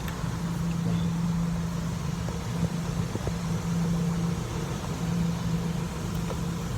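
An engine idling steadily: a low, even hum with a constant droning tone, and a few faint ticks over it.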